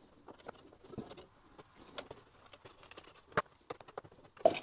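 Scattered small clicks and taps as the cover of an electric motor's terminal box is unscrewed, with a sharp click about three and a half seconds in and a louder knock near the end.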